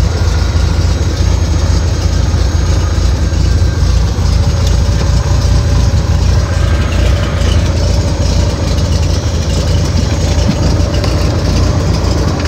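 Cessna 185 amphibian's six-cylinder piston engine and propeller running steadily while the plane taxis, heard inside the cabin as a loud, even drone.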